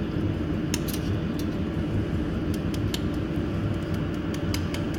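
Steady low hum of a jewelry laser welding machine running with its cooling fan on, with a few faint, irregular clicks.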